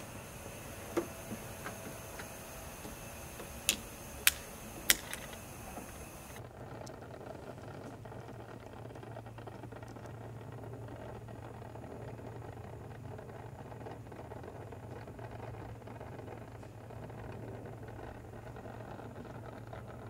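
An automotive smoke tester being hooked up and run into a car's intake: a steady hiss with four sharp clicks of hose fittings in the first five seconds, then a faint steady low hum as the tester pumps smoke into the intake.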